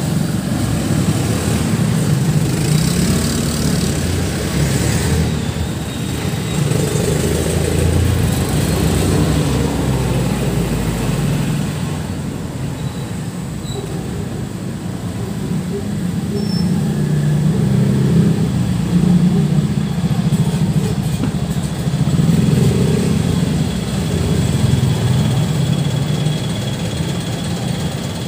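Motor vehicle engine noise that swells and fades in loudness several times.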